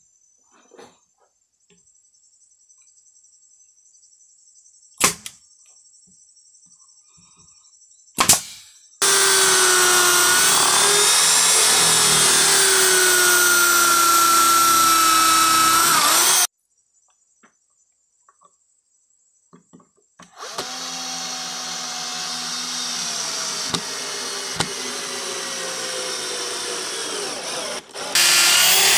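Two sharp shots from a pneumatic nail gun, then a corded electric drill boring into the bark-covered edge of a log slab: a loud, steady whine for about seven seconds that sags slightly in pitch under load, a pause, then a second, quieter run that gets louder near the end.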